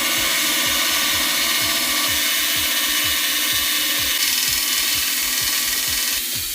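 A power tool running steadily. It starts suddenly, as a loud even noise, and eases off about six seconds in. Electronic music with a steady kick drum plays underneath.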